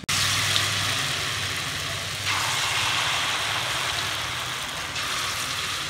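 Semolina fritters deep-frying in hot oil in a wok: a steady sizzle of bubbling oil, a little stronger for a few seconds in the middle.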